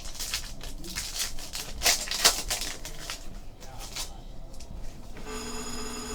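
Trading cards and pack wrappers being handled: a run of quick crisp clicks and crinkles, busiest about two seconds in. Near the end a short steady pitched tone sounds for under a second.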